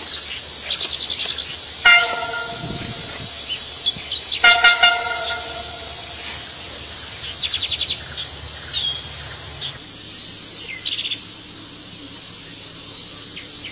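Steady high drone of insects, with a train horn giving two short toots, about two seconds in and again around four and a half seconds in, over a low rumble of the train. The sound changes abruptly about ten seconds in.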